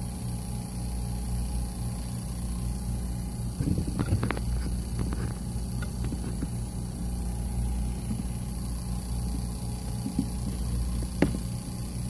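Steady low electrical hum, with a few faint clicks about four seconds in and one more near the end.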